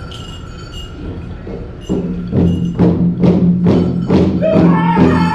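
Powwow drum struck in a steady beat of about two strokes a second, starting about two seconds in after a quieter stretch, as the duck and dive song begins; singing joins near the end.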